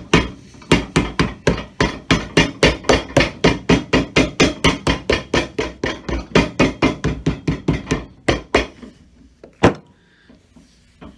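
Cobbler's hammer striking a glued leather sole on a shoe held on an iron last, in a fast even run of blows, about four or five a second, then one last blow near the end. The hammering presses the sole onto the welt to seal it and drive out air pockets.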